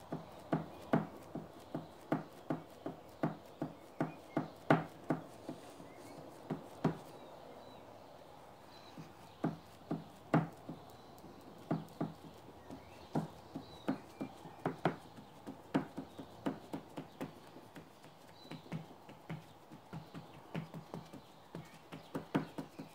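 A paint rag dabbed again and again onto a painted MDF panel, making short soft taps about two a second, with a pause of a couple of seconds about a third of the way in. It is the dabbing of a ragged paint effect.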